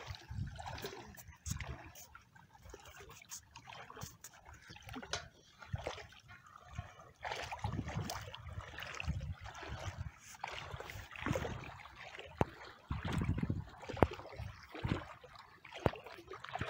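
Shallow sea water sloshing and splashing in irregular swishes as a person wades slowly through it.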